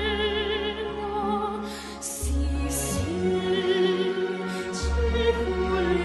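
A young girl singing in classical operatic style, holding long notes with a wide vibrato over orchestral accompaniment.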